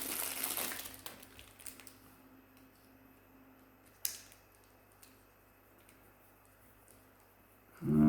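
Brief crinkling and rustling of packaging as a cheap tape measure is handled, fading out within a second or two, then a single sharp click about four seconds in. A short bit of voice comes right at the end.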